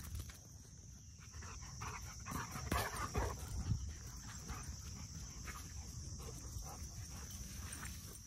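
Dogs heard up close: a cluster of short rough sounds about two to four seconds in, with fainter ones after, over a steady high drone of crickets.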